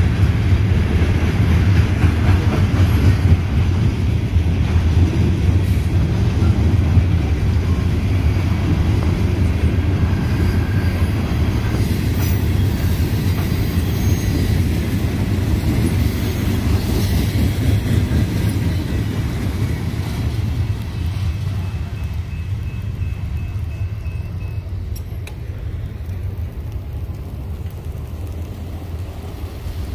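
CSX freight train passing: a steady low rumble of railcars rolling by on the track, slowly fading over the last several seconds as the train moves off.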